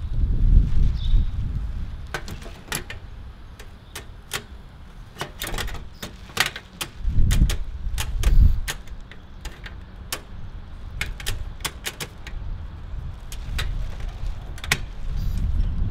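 Sharp, irregular clicks and clatter from a portable butane gas stove being handled while its empty gas canister is swapped. Gusts of wind buffet the microphone, loudest about a second in and again around seven to eight seconds.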